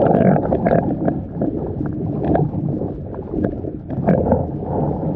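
Wind buffeting the microphone, with water lapping and gurgling against the hull of a canoe in small irregular splashes.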